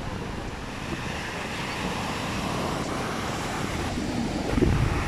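Sea surf breaking on a sandy beach, a steady wash of noise, with wind buffeting the microphone.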